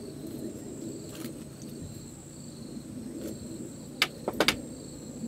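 A few sharp small clicks of tackle and tools being handled on the table: one about a second in and a quick cluster of three near the end, over steady cricket chirring.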